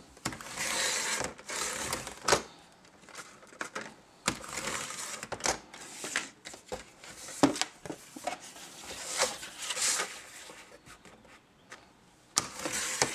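Thin cereal-box cardboard being slid and shifted on a Carl paper trimmer and cut with its sliding blade: several separate scraping rustles with sharp clicks in between.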